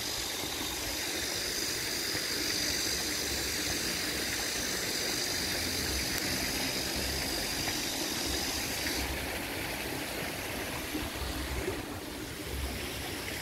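Steady rush of water splashing from a spout into a pond, under a high, steady insect drone that cuts off about nine seconds in.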